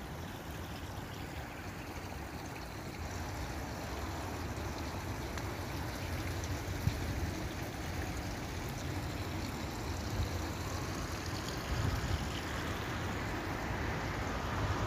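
Outdoor background noise: a steady rushing hiss with a low rumble underneath, a little louder after about four seconds.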